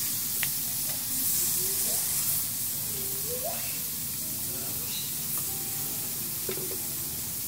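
Meat sizzling on a tabletop Korean barbecue grill, a steady hiss, with a few light clicks and faint voices behind it.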